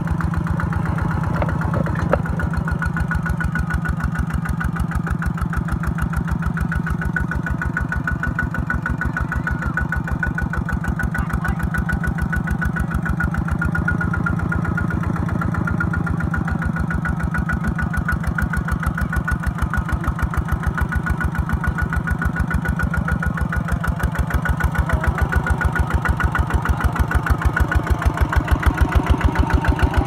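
Kubota two-wheel walking tractor's single-cylinder diesel engine running steadily with a rapid, even thumping. It grows louder over the last several seconds.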